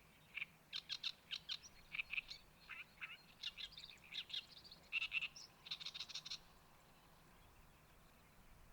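A bird's harsh, chattering song: rapid rasping notes for about six seconds, stopping a little over six seconds in.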